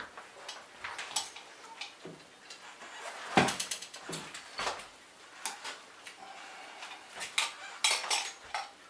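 Scattered metallic clinks and knocks of an electric mountain bike's metal parts being handled during assembly, with a louder knock about three and a half seconds in and a cluster of clanks near the end.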